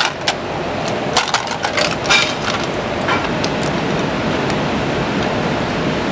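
Clams poured into a pot of boiling fish soup, their shells clicking and clattering against each other and the pot for the first few seconds, over a steady rushing roar from the gas range and the rolling boil.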